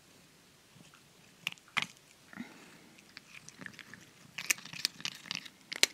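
A cat chewing dry food pieces from a hand, with irregular crisp crunches, a few early on and more rapid ones in the last two seconds.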